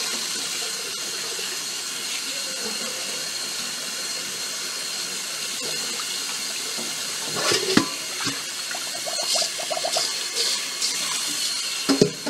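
Kitchen faucet running steadily onto chopped salted napa cabbage in a plastic colander as it is rinsed, with a few short knocks and splashes from hands turning the cabbage, about two-thirds of the way through and again at the end.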